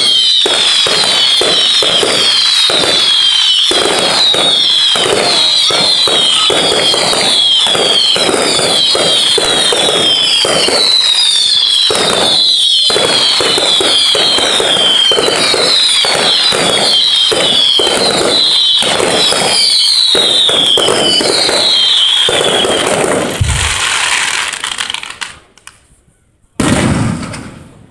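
Fireworks firing a rapid barrage of whistling shots: dozens of overlapping falling whistles over constant crackling and popping, dying away about 23 seconds in. Near the end, one loud burst from aerial shells.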